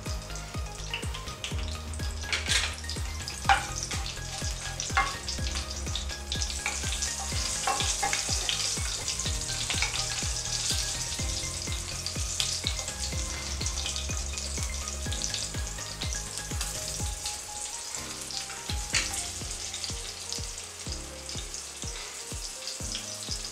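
Whole spices, dry red chillies and a cut green chilli sizzling in hot ghee and oil in a kadai as a tempering (tadka), with a steady hiss and sharp crackles now and then. A wooden spatula stirs them.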